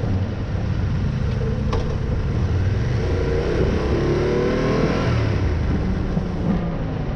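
Yamaha Ténéré adventure motorcycle engine running under way, with wind noise. Around the middle the engine note rises and falls.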